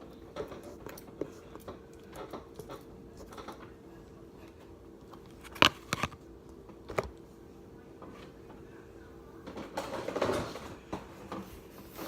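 Slime being handled, making scattered small clicks and pops, with a few sharper clicks about halfway through and a brief squishy, rustling stretch near the end, over a faint steady hum.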